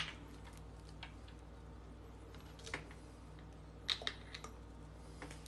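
Faint clicks and taps of a plastic soda bottle being handled on a wooden table, over a steady low room hum. There is a sharper knock at the very start and a small cluster of clicks about four seconds in, as fingers work at the bottle cap.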